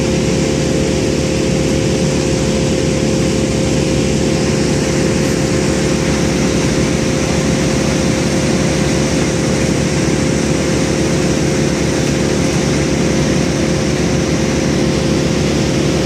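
Heavy equipment engine running steadily at a constant speed: a loud, unchanging hum with a held tone.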